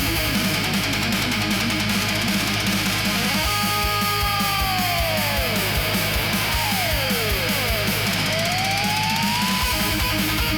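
Heavy-metal music with distorted electric guitar and a steady kick drum, with guitar slides falling and rising in pitch midway through.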